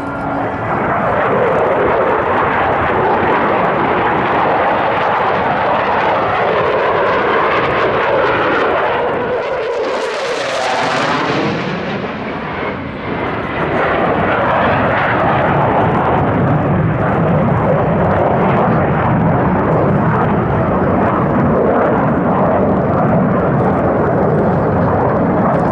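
Mitsubishi F-2 fighter jet's single turbofan engine running at high power as the jet makes its passes: loud, continuous jet noise that swells to a sharp, hissing peak with sweeping tones about ten seconds in as it goes by, then carries on loud.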